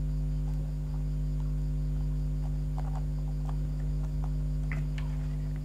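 Steady electrical mains hum, with a few faint clicks and rustles of hands handling the fabric cone and its braided trim.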